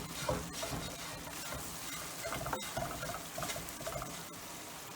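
Bread cubes frying in melted butter in a frying pan, sizzling with small crackles and pops.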